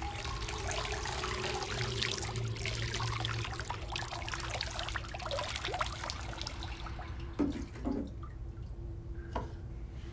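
Water poured from a jug over a child's head into a bathtub, splashing and trickling, until it stops about seven seconds in. A few soft clicks follow, over a low steady hum.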